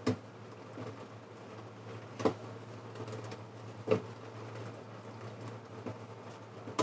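Kitchen knife slicing pig heart thinly on a chopping board: a few sharp taps of the blade reaching the board, a second or two apart, over a faint steady hum.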